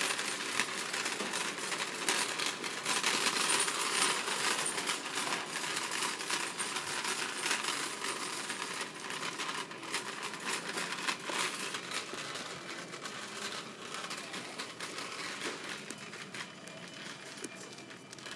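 Wire shopping cart rattling and its wheels clattering as it is pushed along a hard store floor: a continuous, dense metallic clatter that eases off a little toward the end.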